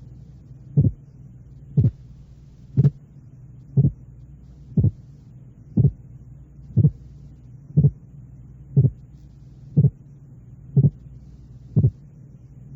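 Simulated split heart sound for auscultation training: a pair of short sounds, each three hundredths of a second, seven hundredths of a second apart, repeated about once a second over a steady low hum.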